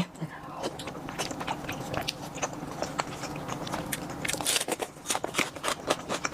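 A person chewing food close to the microphone: irregular wet clicks and crunches of mouth sounds.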